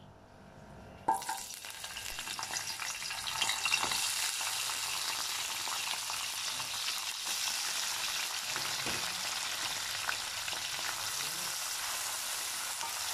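Sliced shallots, lemongrass and curry leaves hitting hot oil in a wok: a sudden sizzle starts about a second in, then they fry steadily while being stirred with a wooden spatula.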